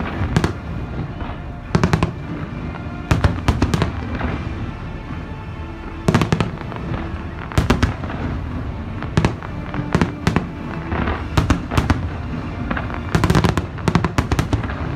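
Fireworks display: aerial shells bursting in sharp bangs, some single and many in quick clusters, about every one to two seconds, with music playing underneath.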